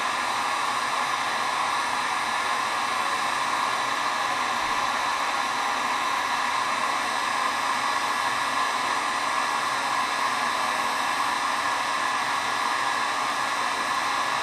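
Electric heat gun blowing hot air steadily, held on acrylic tubing to soften it for bending.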